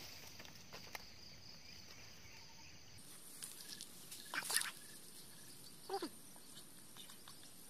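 Two brief faint calls over a quiet outdoor background: one about halfway through, and a shorter one about a second and a half later that falls in pitch.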